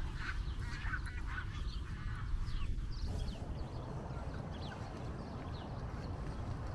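Mallard ducks quacking, mostly in the first three seconds, with short high chirps from other birds throughout, over a steady low rumble.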